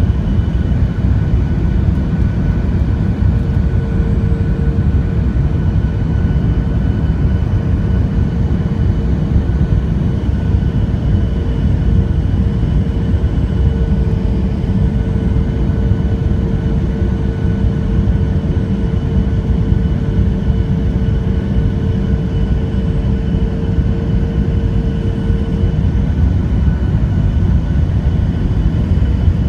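Jet airliner cabin noise in flight: a loud, steady, low engine and airflow rumble with faint steady tones above it. One of the tones comes in a few seconds in and drops out a few seconds before the end.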